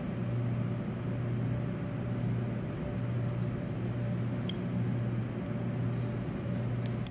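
Steady low hum with an even hiss behind it: the room tone of an indoor space, with no distinct sound from the lift.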